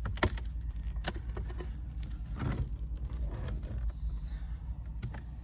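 Scattered clicks and knocks from handling beehive parts, with a short hiss about four seconds in, over a steady low rumble.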